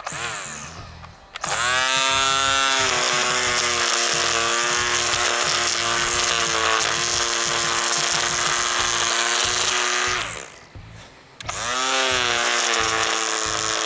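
Ryobi cordless string trimmer's electric motor pulsed on and off to feed more line: a short burst that spins down, then a rising whine up to a steady run for about eight seconds, a cut-off, and a second spin-up near the end.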